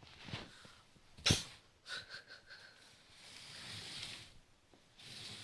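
A sleeping puppy's snoring: a short, sharp burst of breath about a second in, then a long, airy breath a little later.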